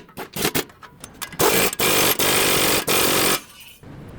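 A few short knocks, then a power tool running loudly for about two seconds before cutting off.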